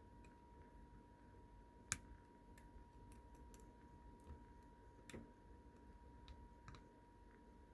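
Faint, scattered clicks of a half-diamond pick and tension tool working the wafers of a slider-style wafer padlock, with a sharper click about two seconds in and another about five seconds in.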